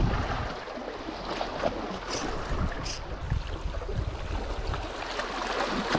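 Small sea waves washing and splashing against shoreline rocks, with wind rumbling on the microphone in irregular gusts.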